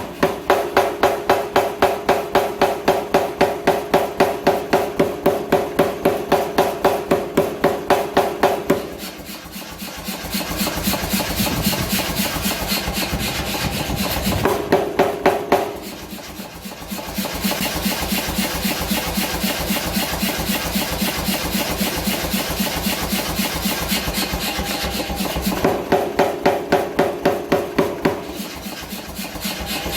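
Mechanical power hammer striking hot H13 tool steel in a rapid even rhythm of about four or five blows a second. In some stretches the blows ring out with a clear metallic tone; in others, from about nine seconds in and again after about sixteen seconds, the ring drops away and the blows turn duller with a rasping noise over them.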